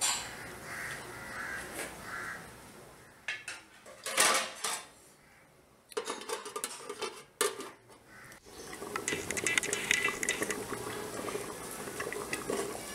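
Aluminium lid clanking and clinking against the rim of an aluminium cooking pot as it is set on and settled, with the loudest clank about four seconds in. Over the last few seconds there is a run of light rattling ticks.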